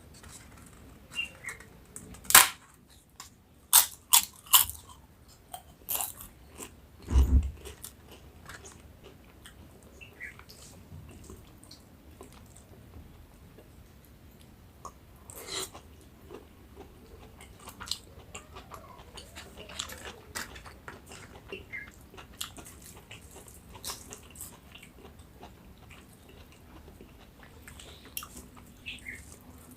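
Close-miked eating: several sharp crunching bites of crisp papad in the first few seconds, then softer chewing and mouth sounds with scattered small crunches. A dull thump comes about seven seconds in.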